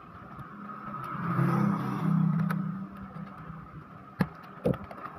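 An engine hum that swells about a second in and fades away again, like a motor vehicle going by, over a steady faint whine. Two sharp clicks follow near the end.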